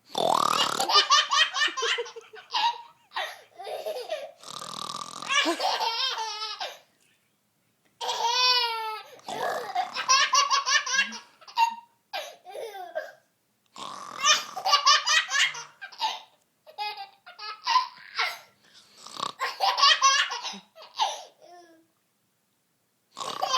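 Toddler boy belly-laughing in several long bouts of rapid, repeated laughs, with short pauses between them. Short noisy snort-like sounds, his mother's mock snoring, come in between and set off the laughter.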